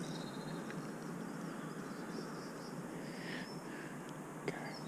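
Faint, steady outdoor background noise with one short click near the end.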